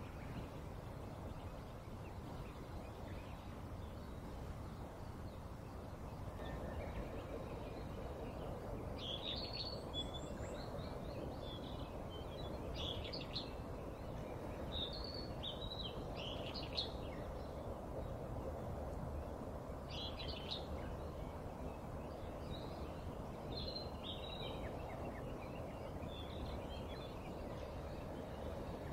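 Small birds chirping in short, scattered calls from about nine seconds in, over steady background noise.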